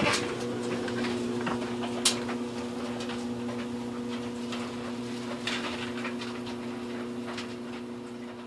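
Clothes dryer running: a steady electric motor hum with scattered light clicks and ticks from the turning drum.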